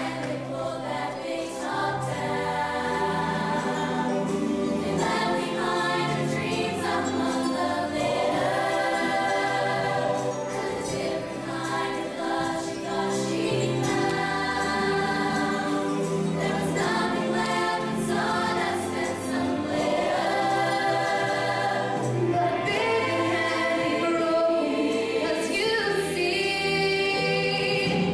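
Mixed high school show choir singing a slow ballad in harmony, holding long chords that change every second or two, over low sustained accompaniment notes.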